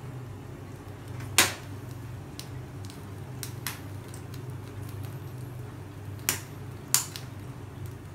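A whole chicken singeing over a gas stove flame: a steady low hum with sharp crackles from the skin, three loud ones about a second and a half in and twice near the end, and a few fainter clicks between.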